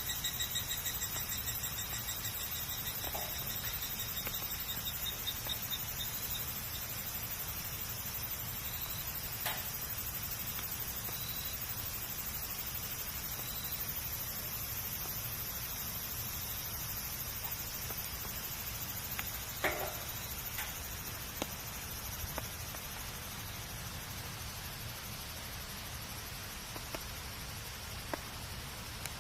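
Bonfire burning with a steady low hiss and occasional sharp crackles of wood, a few seconds apart. A faint high, pulsing chirp, like crickets, sounds during the first few seconds.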